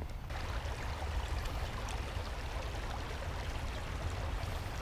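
Shallow creek water running over a rocky shelf: a steady rushing hiss, with a low rumble underneath. It starts abruptly just after the beginning.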